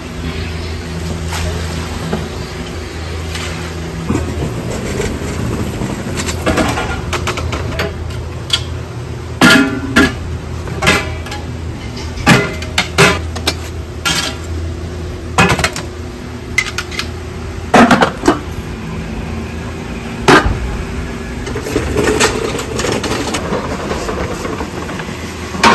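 Large aluminium soup pots being lifted, set down and moved, clanking and ringing a dozen or so times, mostly in the middle stretch, over a steady low rumble.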